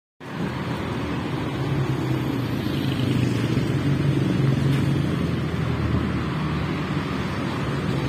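Road traffic on a busy city street: cars passing with a steady low rumble and engine hum that grows a little louder around the middle.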